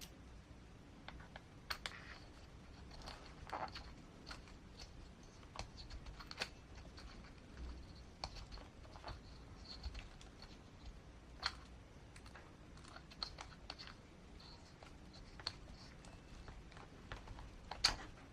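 Light, irregular clicks and taps of small parts being handled: a wheel nut being threaded onto the axle of a scale RC crawler as its wheel is fitted.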